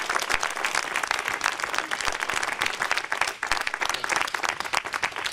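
A crowd applauding: many hands clapping, dense and irregular.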